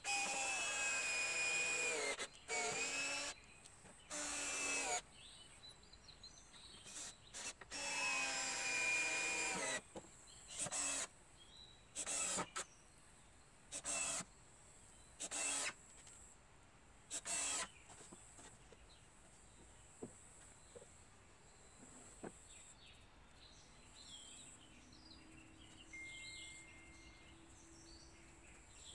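Cordless drill/driver driving screws into wooden battens: several long runs of the motor over the first ten seconds, its pitch bending under load. Then about five short bursts, roughly one every second and a half, and after that only faint background.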